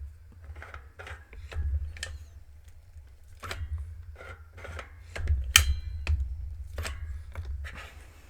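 Irregular light clicks, taps and knocks of a metal cutting die and card stock being handled on a tabletop, with a low rumble underneath.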